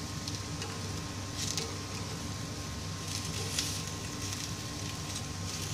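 Kothimbir vadis (gram-flour and coriander squares) sizzling steadily in shallow oil in a nonstick frying pan, with a few short clicks as tongs turn the pieces over.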